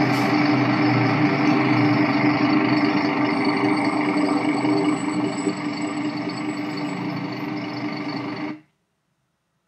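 City bus engine running close by, with a steady low hum and street noise, easing off a little about five seconds in and cutting off suddenly near the end.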